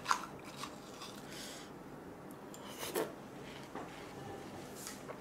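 A metal spoon scraping and scooping juicy flesh out of a hollowed-out watermelon half, with a few short scrapes and clicks near the start and another about three seconds in, amid soft wet chewing of the watermelon.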